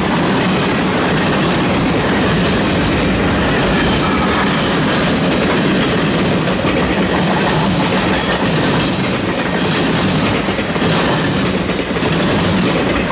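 Freight cars of a mixed freight train rolling past: a steady, loud rumble of steel wheels on rail with clickety-clack over the track.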